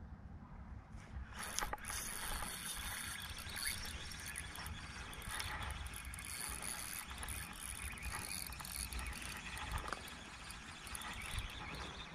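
Spinning reel being cranked on a lure retrieve: a fast, fine whirring tick of the reel's gears that starts about a second in and keeps going.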